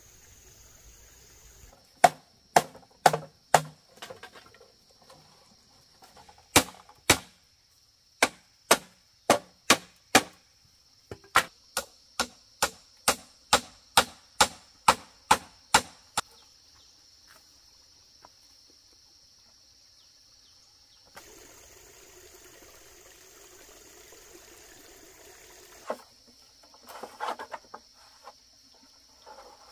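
Repeated sharp strikes of a hand tool, about two a second, in runs of several, with pauses between the runs. A steady high insect chirring runs underneath, and a few seconds of steady noise come about two-thirds of the way through.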